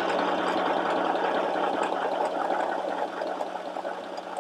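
FHSM 505 mini sewing machine running steadily as it sews a zigzag buttonhole side on stitch 7, getting gradually quieter toward the end.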